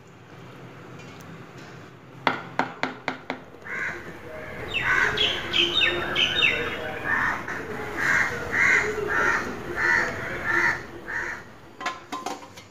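Crows cawing, a run of repeated harsh calls about every half second through the middle of the clip, with a few downward-sweeping bird calls mixed in. A few sharp clicks come before them and near the end.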